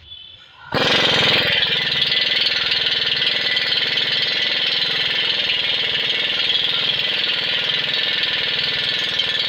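Pneumatic impact wrench hammering on a mild-steel bolt whose nut is held with a ring spanner. It starts under a second in and keeps hammering steadily.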